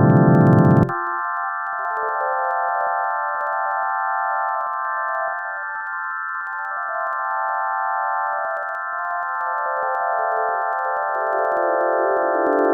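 Computer-generated sonification of the Mandelbrot set's seahorse valley: a dense cluster of steady sine tones held together like an organ chord. About a second in, the lower tones cut out and the sound gets quieter. The lowest remaining pitch then wanders and slides steadily downward near the end.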